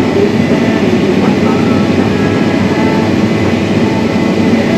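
Heavy farm machinery running steadily at harvest, its diesel engine and machinery making a loud, even drone.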